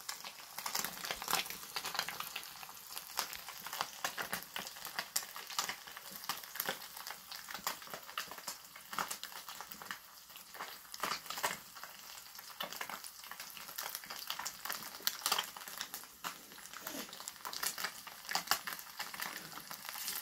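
Small fish frying in hot oil in a pan: a steady sizzle with dense, irregular crackling pops.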